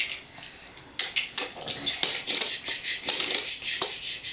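Plastic Mega Bloks toy train being handled and pushed, its blocks and wheels giving an irregular run of light clicks and rattles that starts about a second in.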